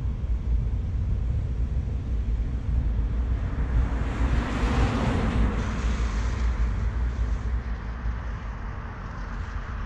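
Wind buffeting the microphone, with a car passing on the road: its tyre noise swells about halfway through and fades away again.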